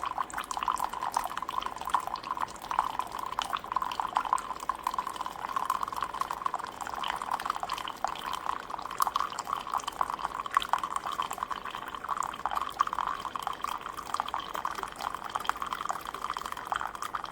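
Ninja Pod & Grounds single-serve coffee maker brewing on the 12-ounce setting: a steady stream of coffee trickles and splashes into the cup.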